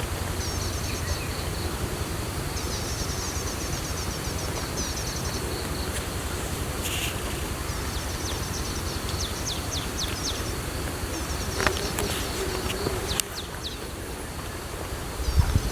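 Small birds chirping in quick high trilled runs, three times, over a steady high-pitched insect drone and a low rumble.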